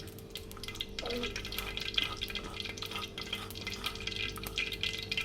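Hot oil and a spoonful of ghee sizzling in a clay pot on the stove, with a steady scatter of small crackling pops.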